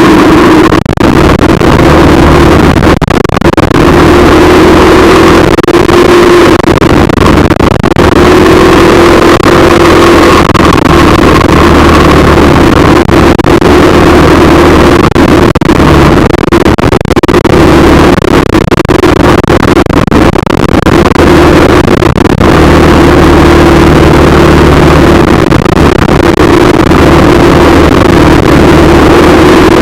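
A moving road vehicle: a loud, steady engine and road drone with a slightly wavering hum, broken by many short knocks or buffets.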